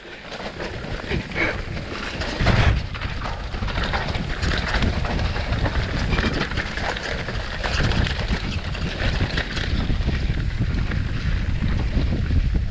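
Mountain bike rolling fast downhill on a dirt singletrack: wind buffeting the microphone over a steady rumble of tyres on dirt, with the bike clattering and knocking over bumps and one loud knock about two and a half seconds in.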